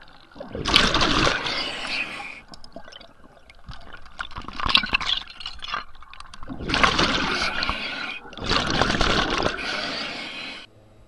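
Underwater water noise at a camera housing: bubbling, rushing bursts of one to two seconds, four of them, cutting off abruptly near the end.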